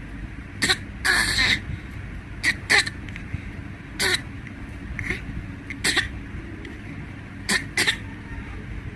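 A small child fake-coughing on request: a run of short, sharp coughs, several coming in pairs, with one longer cough about a second in.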